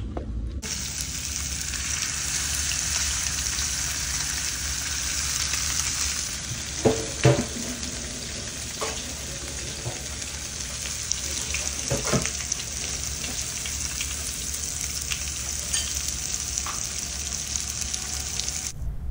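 Whole fish sizzling steadily as they fry on a flat pan over a gas flame. A couple of short pitched sounds break through around seven and twelve seconds in.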